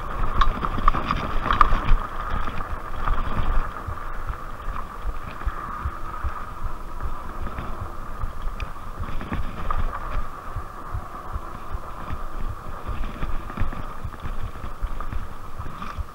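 Rad Rover e-bike's 750-watt hub motor whining steadily under power, over an uneven low rumble and thumps from the tyres on a bumpy dirt trail, with wind on the microphone. It is a little louder in the first few seconds.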